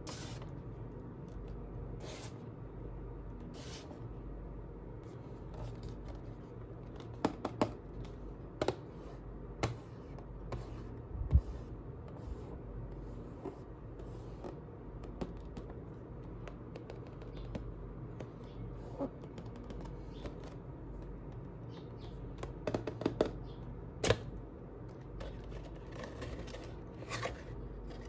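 Unboxing handling noise: packaging and a boxed figure being handled, with scattered clicks, scrapes and rustles over a low steady hum, in a few quick clusters.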